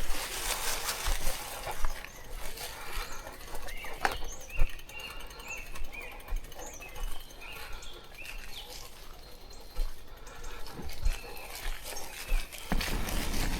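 A string of short, high chirping animal calls repeated for a few seconds in the middle, among scattered clicks and rustling.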